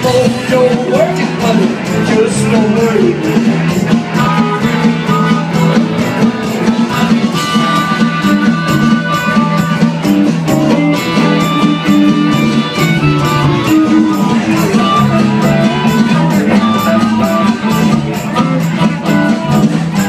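Live blues band playing: electric guitar, bass and drums keeping a steady beat, with held notes above, and a man singing into a microphone near the start.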